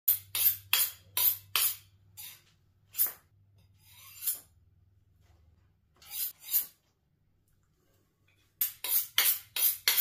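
A kitchen knife being honed on a sharpening steel, making short metallic scraping strokes. There is a quick run of strokes at the start, a pair about six seconds in, and another fast run near the end.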